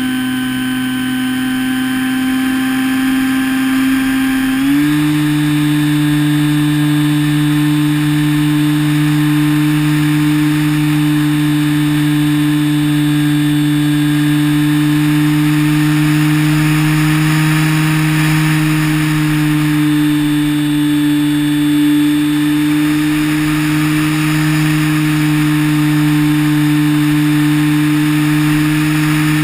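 EasyStar 2 RC plane's electric motor and pusher propeller running steadily in flight, heard from the onboard camera with wind hiss. The whine steps up slightly in pitch about five seconds in as the throttle is opened a little, then holds.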